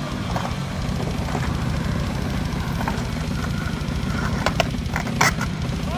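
Skateboard wheels rolling over concrete with a steady low rumble, then a few sharp clacks of the board about four and a half to five and a half seconds in.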